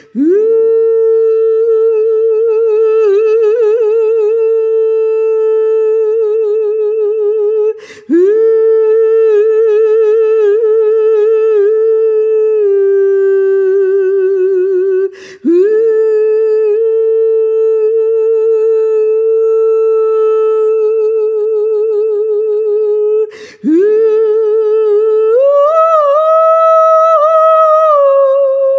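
A woman's solo wordless vocal tones for sound healing: long held notes on nearly one pitch with a slow wavering vibrato, each phrase starting with a swoop up from below. There are three short breaths, about every seven or eight seconds, and near the end the pitch steps up and then eases back down a little.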